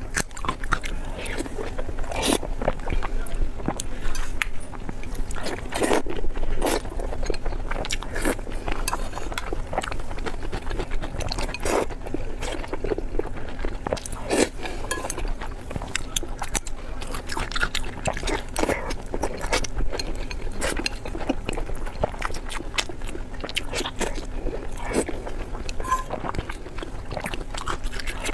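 Close-miked eating: steady chewing with frequent wet smacks and sharp mouth clicks, a few crunchy bites among them, over a faint steady hum.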